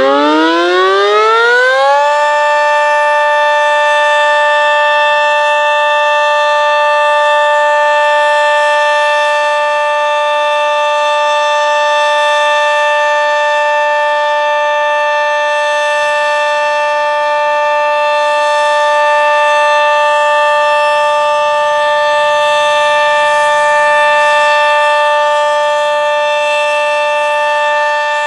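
Sentry 40V2T dual-tone outdoor warning siren sounding its full alert (steady tone): it finishes winding up, its pitch rising for about two seconds, then holds a loud, steady two-tone chord.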